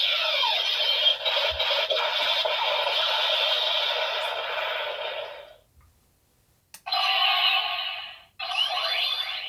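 Kamen Rider Saber DX transformation belt playing its electronic finisher sound effects, music and announcer calls through its small speaker. The sound cuts off about halfway through, a click follows, and two shorter bursts of sound effects come after it.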